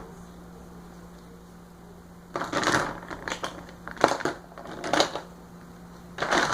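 Hard plastic parts of a Play-Doh cupcake playset clicking and clattering as they are handled and fitted together: one click at the start, then after a short pause a run of about five sharp clatters roughly a second apart.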